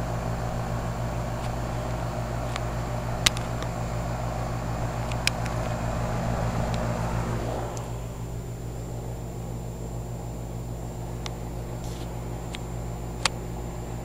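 2008 Carrier 2.5-ton central air-conditioner condensing unit running: a steady compressor hum under the rush of the condenser fan. About eight seconds in, the fan rush drops away and a lower steady hum remains.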